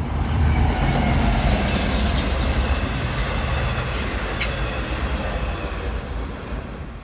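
Subway train running on the rails: a steady low rumble with track noise and a faint high whine, and two sharp clicks about four seconds in.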